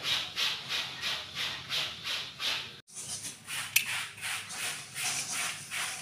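Rhythmic scraping, about two and a half strokes a second, broken briefly about three seconds in, followed by similar strokes and a sharp click.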